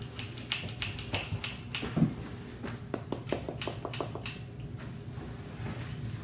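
Quick, irregular light clicks and taps of kitchen utensils against dishes while whoopie pie batter is portioned out, with one duller knock about two seconds in. The clicking stops after about four seconds.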